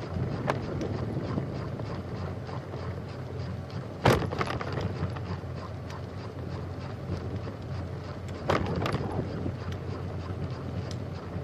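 Bicycle riding along a trail: a steady rumble of tyres and wind on the microphone, with two sharp knocks, about four and eight and a half seconds in, as the bike jolts over bumps.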